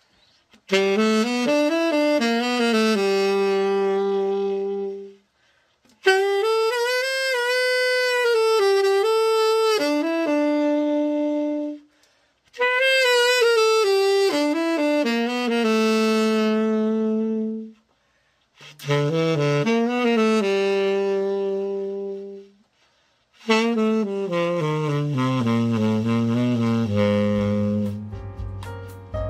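Selmer Super Action 80 Series III tenor saxophone played in five melodic phrases with short breaths between them: a play test of the freshly overhauled horn.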